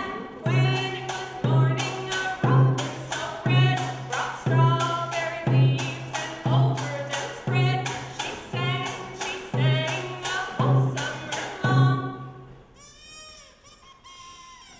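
A snare drum beaten in a steady slow pulse, about one beat a second, with a voice singing over it. The drumming and singing stop about twelve seconds in.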